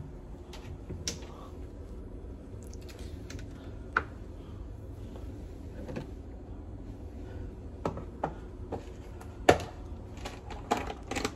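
Scattered clicks and knocks of kitchen things being handled as a spoon and a small cup are fetched, with cupboard or drawer knocks among them, over a steady low hum.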